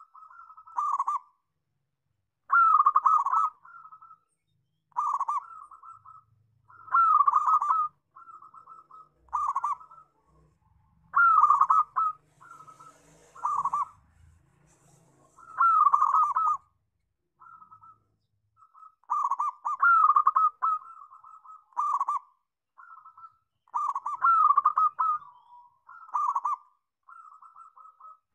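Zebra dove (perkutut) cooing, repeating its phrase about every two to three seconds: a quick run of notes followed by a few shorter trailing ones.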